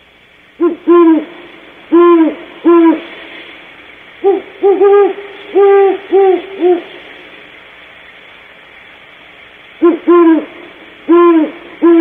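Great horned owl hooting in three bouts of short, low hoots, each note rising and falling in pitch: about four notes, then about six, then four more near the end.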